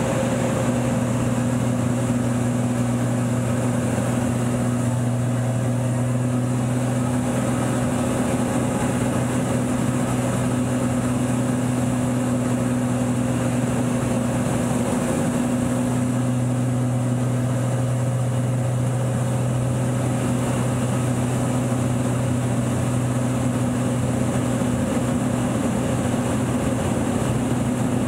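Extra aerobatic plane's six-cylinder Lycoming AEIO-580 engine and propeller running at a steady drone in flight, heard from inside the cockpit together with rushing air.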